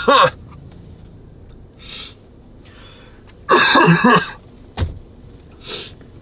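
A person coughing, a lingering cough from a month-long cold: a cough right at the start and a harder bout of coughing about three and a half seconds in, with quieter breaths between. A single sharp knock follows the second bout.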